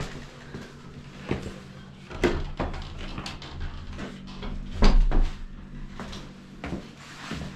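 Footsteps going down a staircase: an irregular series of knocks and scuffs, with one heavier thump about five seconds in, over a faint steady low hum.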